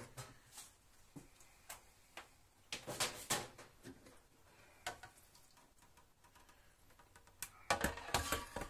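Scattered light clicks and knocks of kitchen items being handled on a counter, with a louder cluster about three seconds in and a busier clatter near the end.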